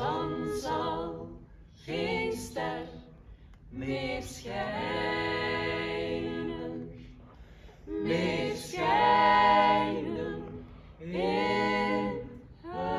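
A small mixed group of voices, women and men, singing a cappella in harmony. The song comes in phrases with short breaths between them, including a long held chord in the middle, and the loudest phrase falls a little past halfway.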